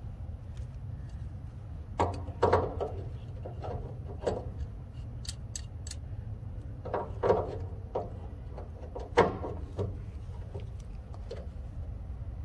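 Metal hand tools clinking and knocking: pliers being handled and set against a diesel tank's valve fitting, a string of separate knocks with a few sharp, high clicks, over a steady low rumble.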